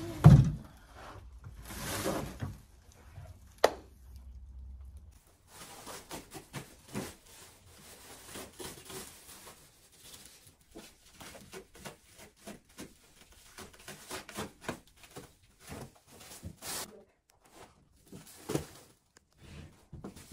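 Plastic stretch wrap being pulled and torn off furniture, crinkling and rustling in many short irregular bursts. A heavy thump comes right at the start and a sharp click a few seconds in.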